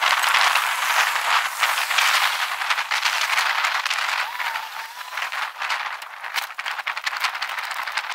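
Bicycle rattling as it rolls over pavement: a dense, rapid, irregular clatter from the frame and handlebar.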